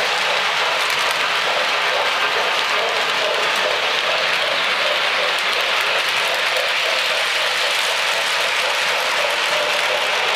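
O-gauge model trains running on Lionel Fastrack: a steady rushing rumble of wheels and motors on the hollow plastic track, with no change in level.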